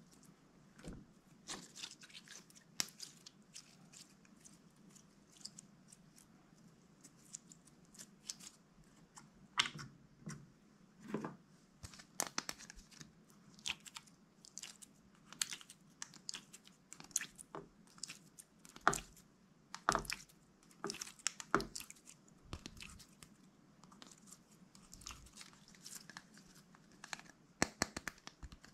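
Clear, glossy slime being kneaded and stretched by hand, giving irregular sticky clicks and pops.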